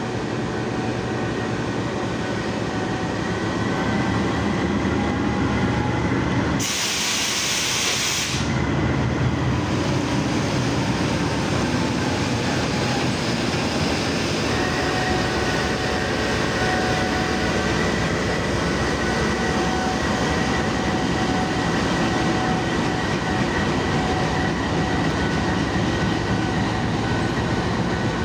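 GE U20C (GEU-20) diesel-electric locomotive running as it pulls a passenger train away and passes close by, with a steady whine joining in about halfway through. A short hiss of about a second and a half comes about seven seconds in.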